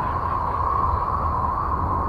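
Space 'sound' of Uranus: Voyager 2's electromagnetic data from the planet rendered as audio, a steady rushing drone with a low rumble underneath and a faint high whistle.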